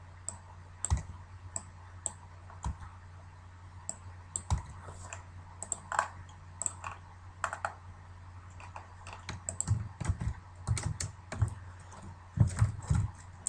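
Computer keyboard keystrokes: a few scattered taps at first, then a quicker run of typing over the last few seconds, over a faint steady low hum.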